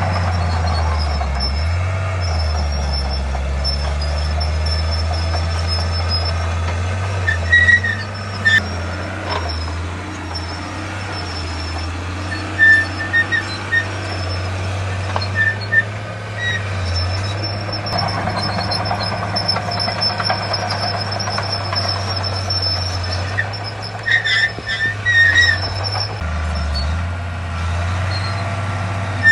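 Heavy diesel earthmoving machinery running steadily with a low drone, broken by three clusters of short high-pitched squeaks.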